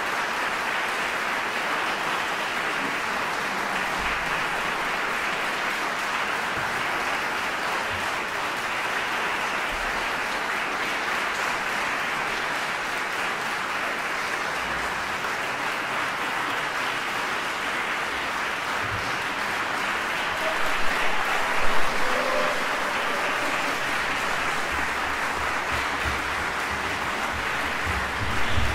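Concert audience applauding steadily, with a few louder knocks and thuds in the last several seconds.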